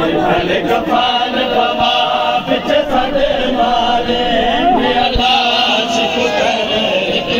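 A dense crowd of male Shia mourners chanting together, many voices overlapping in a loud, unbroken chant.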